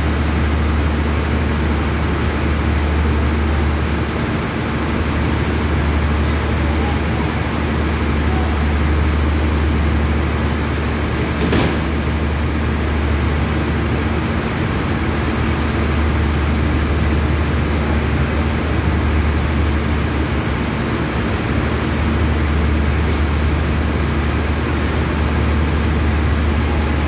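Steady low diesel hum of a stationary passenger train, its engines idling at the platform, with one short knock about twelve seconds in.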